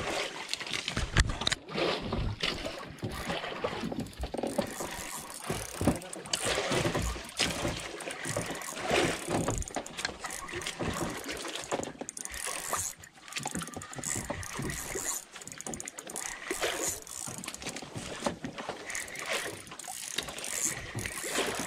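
Ryobi spinning reel being cranked to wind in a hooked fish, its gears running with a stream of small clicks, along with frequent knocks and bumps against the boat.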